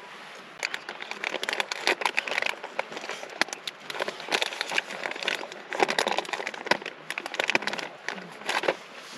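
Crinkling and crackling of crinkly material such as a plastic bag or wrapper being handled close to the microphone, in irregular bursts that start about half a second in and stop shortly before the end.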